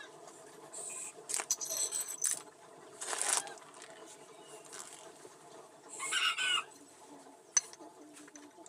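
Short metallic clinks and scrapes, with a chicken calling once, briefly, about six seconds in.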